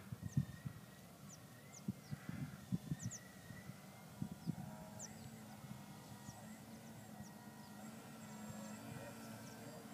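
Faint, steady hum of a distant electric RC aerobatic plane, its Hacker A60 motor turning a 21x10 propeller, growing slowly louder in the second half as the plane comes closer. Low thumps on the microphone in the first half.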